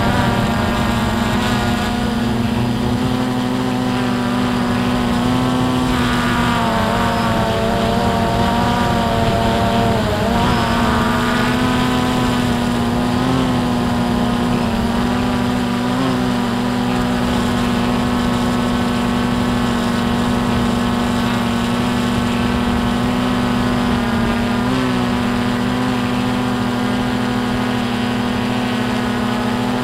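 Drone's propeller motors running in flight: a steady, loud whine made of several pitches that slide up and down for a few seconds in the first third as the drone manoeuvres.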